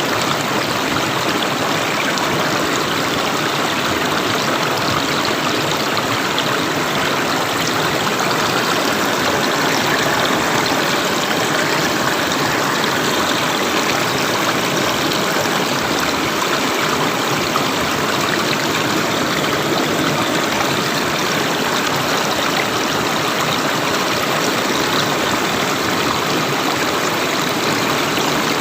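River water flowing steadily, a continuous rushing and babbling with no change in level.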